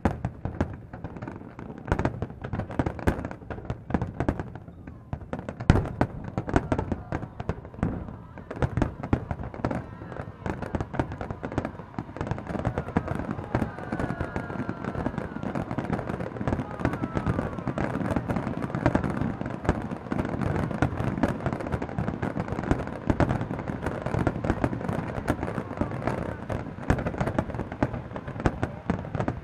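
Aerial fireworks shells bursting in a dense, continuous barrage of bangs and crackling, many overlapping with no pause.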